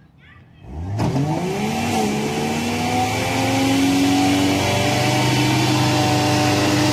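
SUV engine revving hard under load to pull a stuck vehicle. It starts about a second in, climbs in pitch for a couple of seconds and then holds steady at high revs.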